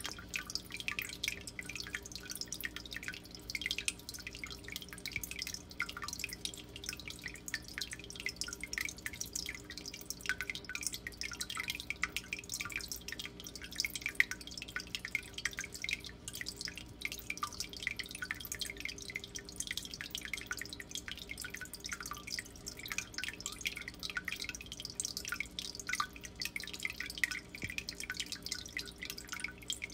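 Aquarium water trickling and dripping without a break, a quick, irregular patter of small drips over a steady low hum.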